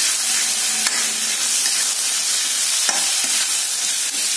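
Shrimp and meatball pieces sizzling in a wok over high heat while a metal spatula stirs and scrapes them, with a couple of sharp clicks of the spatula against the pan about one and three seconds in.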